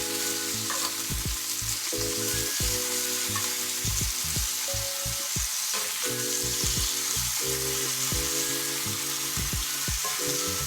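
Six strips of bacon frying in a hot pan, a steady sizzle.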